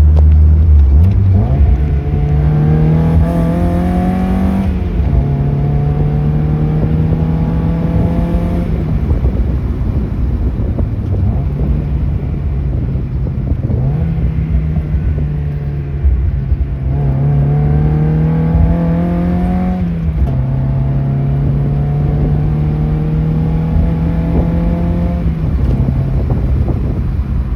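Mazda Miata four-cylinder engine on SpeedyEFI fuel injection, pulling hard through the gears in two runs. Each time the note climbs, drops at an upshift and climbs again. The owner says it misfires consistently at about 4900 rpm.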